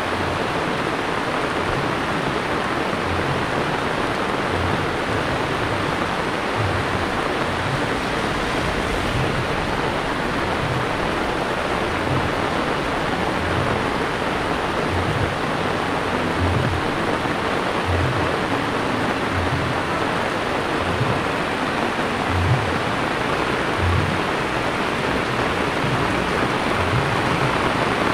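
Heavy rain falling steadily on a paved road, a dense, even hiss. Soft low thumps come about once a second underneath.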